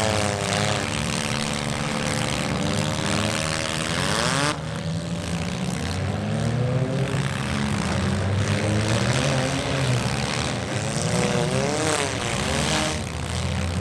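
Several demolition derby cars' engines running and revving together, their pitch rising and falling over a rushing exhaust noise. The hiss drops off abruptly about four and a half seconds in.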